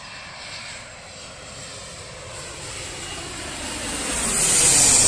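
A twin rear-engined jet airliner on landing approach with its gear down, passing low overhead. Its jet engine noise builds steadily and is loudest near the end, with a strong high hiss.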